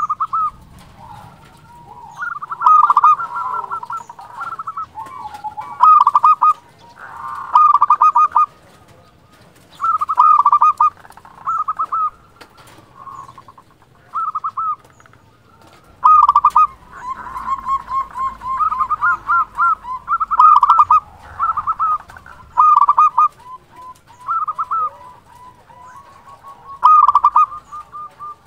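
Zebra dove (perkutut) singing. It gives repeated short phrases of rapid, trilling coos, one phrase every second or two.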